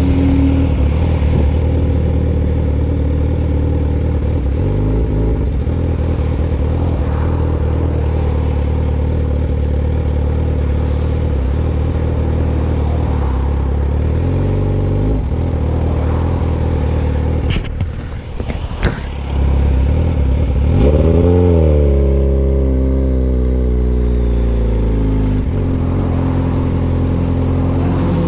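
Car engine running while driving, heard from inside the vehicle, dipping briefly then revving up in pitch about two-thirds of the way through before settling back.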